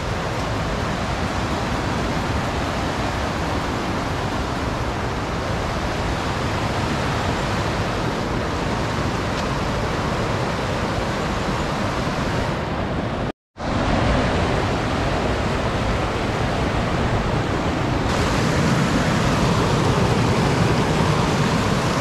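Steady rushing noise with no clear pitch or rhythm. It cuts out abruptly for a moment about thirteen seconds in, then carries on slightly heavier in the low end near the end.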